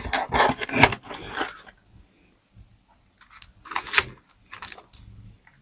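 Close-up crunching and chewing of crispy deep-fried pork knuckle skin: a run of sharp crackles, a pause, then a second run.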